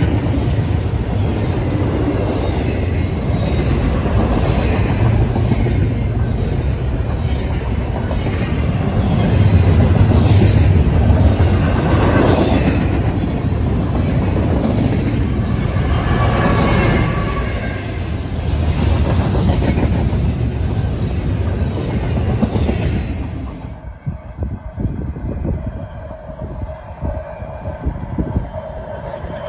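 Freight train of double-stack container well cars and autorack cars rolling past close by: a continuous rumble of steel wheels on rail with clattering and clanking from the cars, and a squeal of wheels around 16 to 17 seconds in. The noise drops away abruptly about 24 seconds in.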